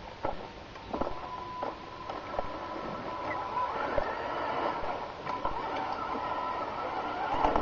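1:14-scale Tamiya Scania R620 radio-controlled truck driving over gravel: a steady electric-drive whine, with scattered clicks and crunches from the gravel and a louder stretch near the end.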